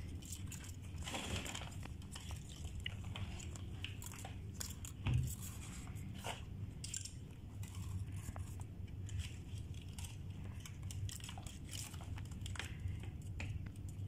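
Handling noise from electrical wiring work: scattered small clicks and crinkles as insulated cables and pliers are handled, over a steady low hum, with one louder knock about five seconds in.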